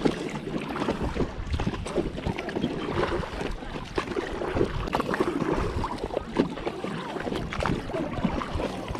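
Oars rowing a small inflatable pontoon boat: the blades dip and pull through lake water with repeated irregular splashes, and water slaps against the tubes.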